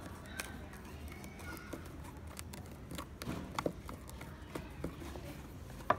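Hand screwdriver unscrewing screws from a speaker's casing: scattered small clicks and taps of the screwdriver working the screws and knocking the case, the loudest near the end.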